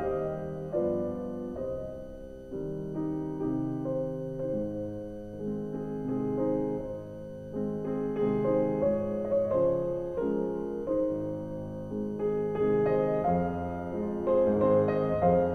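Calm piano music, a gentle melody of single notes and chords moving along at an unhurried pace.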